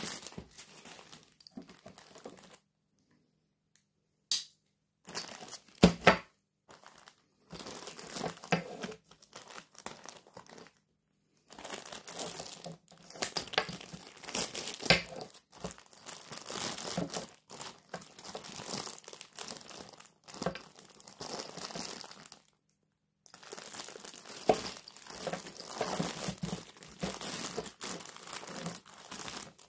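Clear plastic packaging bags crinkling and rustling as they are handled and cut open with a utility knife, in stretches broken by short pauses, with a couple of sharp clicks about five seconds in.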